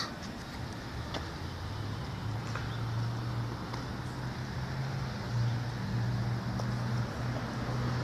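A steady low hum that wavers slightly in pitch, over outdoor background noise, with a few faint clicks.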